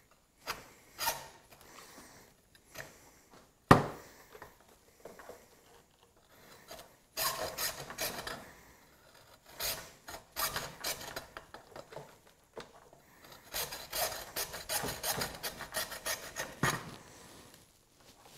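Hacksaw cutting through a Minn Kota trolling motor's composite shaft: scattered rasping strokes at first, then denser back-and-forth sawing through most of the second half. One sharp knock about four seconds in is the loudest sound.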